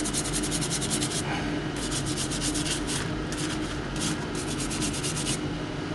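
A hand brush scrubbing rust, loosened by electrolysis, off a steel adjustable wrench: quick back-and-forth scraping strokes in bursts of about a second, with short pauses between them.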